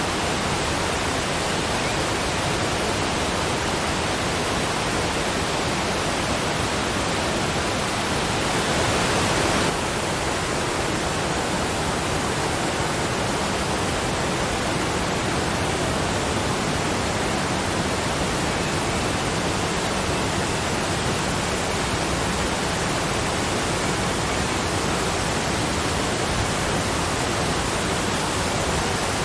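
Waterfall: a steady rush of falling water, swelling slightly for a couple of seconds about eight seconds in.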